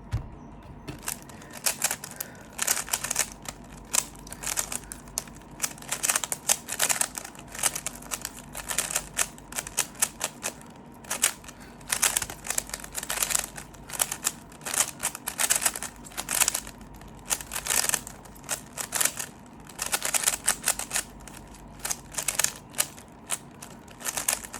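Rubik's Cube being solved at speed: rapid plastic clicking of the layers turning, in quick bursts with short pauses between them.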